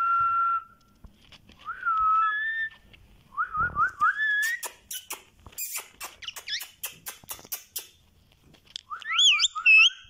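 Indian ringneck parakeet whistling: short clear whistles that glide in pitch, then a quick run of sharp clicks for a few seconds, then more rising whistles near the end.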